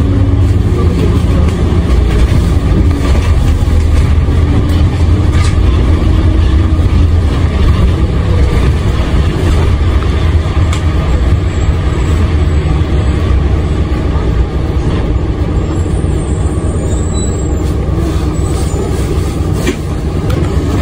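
Isuzu Erga city bus with its four-cylinder diesel under way, heard from inside the cabin: a steady engine and road rumble with a few light rattles and clicks, easing slightly near the end.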